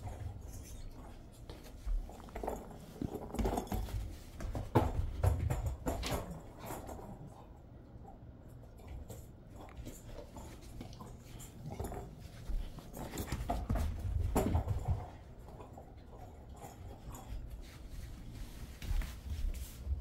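A Jindo mix dog moving about with a small ball in its mouth: irregular short knocks and scuffs in clusters, busiest in the first few seconds and again about two thirds of the way through.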